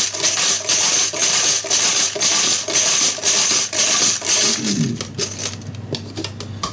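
Numbered raffle chips rattling inside a skull-shaped jar as it is shaken hard to mix them, a fast steady clatter of many small clicks. The shaking stops about five seconds in, leaving a few light clicks.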